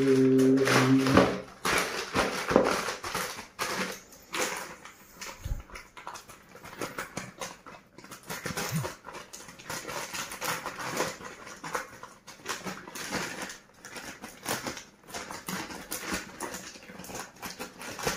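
Plastic courier mailer bag crinkling and rustling as it is handled and cut open with scissors, an irregular run of crackles and snips.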